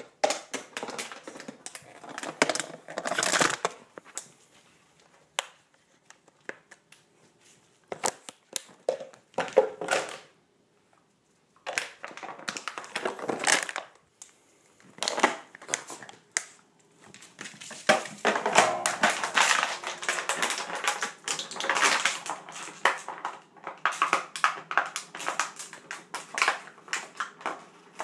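Empty plastic water bottle crackling and crunching as dogs bite and bat it about, in irregular bursts of sharp crackles and knocks, with a pause about ten seconds in.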